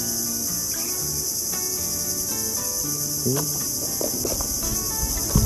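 Steady, high-pitched insect chorus, a continuous shrill chirring that carries under everything.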